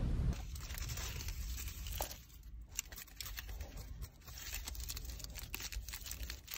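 Aluminium foil crinkling and rustling as a foil-wrapped bagel sandwich is opened and handled, a dense run of small irregular crackles.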